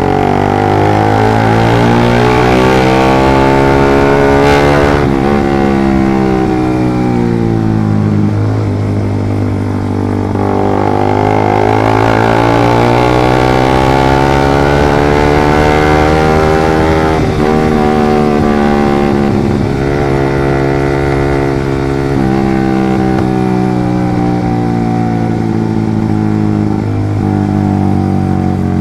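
Suzuki GSX 150 cc single-cylinder motorcycle engine running through a short Pro Liner aftermarket exhaust, heard from the rider's seat while riding. Its pitch rises and falls with the throttle and breaks off several times, like gear changes. The note is deep and solid, not tinny.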